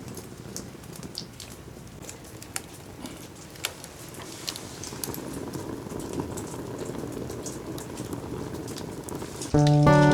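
Fire burning in a fire pit made from an 18-litre square can, crackling with scattered sharp pops over a low rushing of flame. Loud music comes in just before the end.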